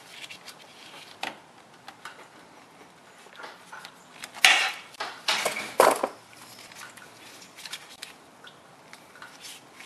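Metal pliers clicking and scraping on a spring hose clamp as it is squeezed and slid back, then the rubber transmission cooler hose being worked off its radiator fitting. Small scattered clicks, with a few louder scrapes about halfway through.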